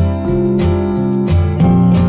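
Background music of strummed acoustic guitar chords.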